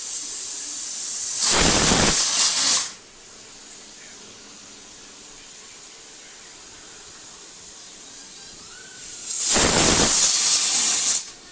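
Pressure cooker whistle: two loud blasts of steam hissing out past the weight, each about one and a half to two seconds long and about eight seconds apart, with a softer steady hiss of steam in between.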